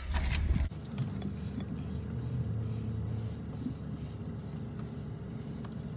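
Low, steady rumble of a vehicle engine running, with a faint steady hum over it; a heavier low rumble cuts off under a second in.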